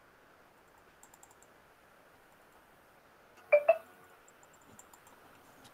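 Faint clicks at a computer over a low room hiss, with one short, louder sound about three and a half seconds in.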